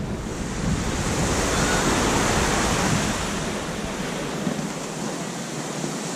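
Small waves washing onto a sandy beach, swelling and easing, with some wind rumbling on the microphone.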